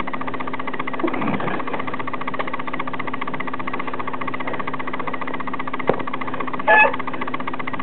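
Rat terrier growling steadily in a continuous low grumble, with a short falling whine about a second in and a brief high yelp near the end.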